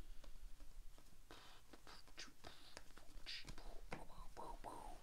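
Trading cards handled and slid through a stack: several short, soft scrapes and light clicks of card stock rubbing together. A faint mumbled voice comes in near the end.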